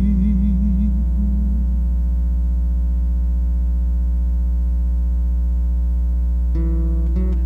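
Loud steady low electrical hum, likely from the sound system, under the sound of a cantor's held sung note with vibrato that ends about a second in. An acoustic guitar chord rings on, and new guitar notes come in near the end.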